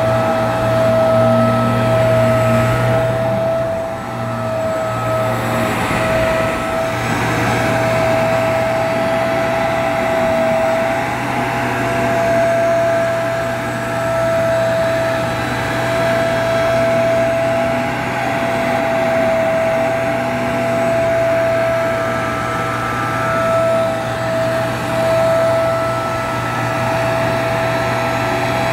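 Bissell PowerClean carpet washer running steadily as it is pushed over carpet: the suction motor's steady whine over the noise of the motorised brush roll and the water being drawn back up, with a brief dip about four seconds in.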